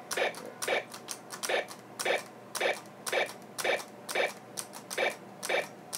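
Nerf Laser Ops Pro AlphaPoint laser-tag blaster sounding its out-of-ammo alert from its small speaker: a short sound repeating evenly about twice a second, signalling the blaster is empty and needs reloading.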